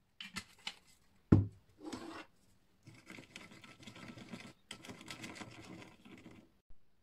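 A loud knock about a second in, then a silicone spatula stirring and scraping olive oil and spices around a ceramic bowl, a quick continuous rubbing that stops near the end.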